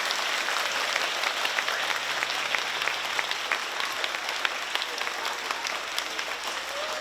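Audience applauding: dense, steady clapping made up of many individual hand claps.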